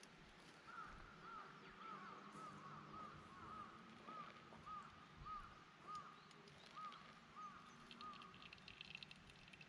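A bird calling faintly in a steady series of short, arched notes at one pitch, about two a second, stopping near the end. Faint crackles come in near the end.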